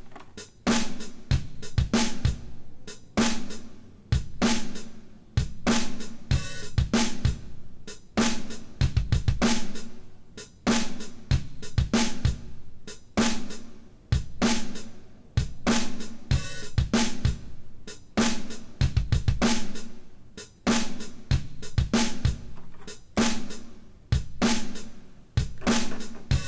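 Background music with a steady drum-kit beat: kick drum, snare, hi-hat and cymbals.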